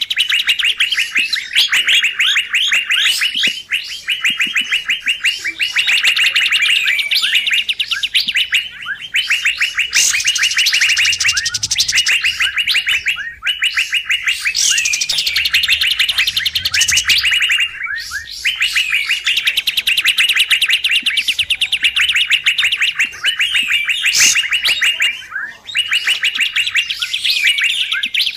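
Bird-lure recording of kapas tembak calling in a busy, noisy chatter, mixed with female cucak biru (Asian fairy-bluebird) calls. It is a nearly continuous run of fast, repeated chirping notes, broken now and then by high swooping whistles.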